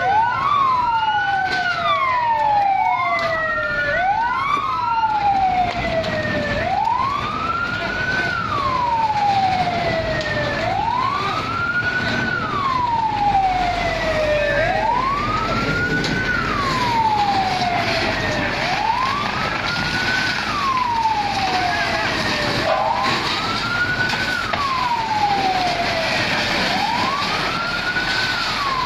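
Fire engine siren wailing, rising and falling about every four seconds. A second siren overlaps it for the first few seconds. Crowd chatter runs underneath.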